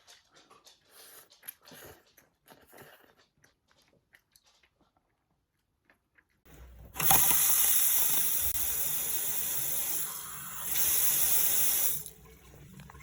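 Tap water running hard into a sink for about five seconds, from about halfway through. It eases briefly, comes back stronger, then shuts off. Before it, only faint small clicks and handling noises.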